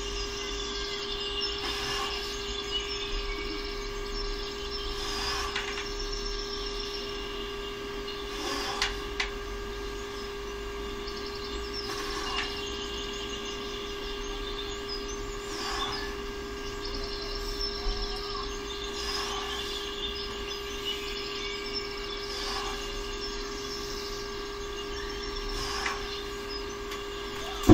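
A steady hum with a faint clink about every three and a half seconds, in time with plate-loaded dumbbells being pressed and lowered.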